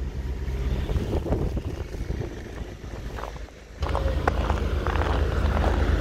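Blizzard wind buffeting the microphone with a gusty low rumble. About two-thirds of the way in it cuts abruptly to a louder, steady low rumble with scattered clicks and knocks.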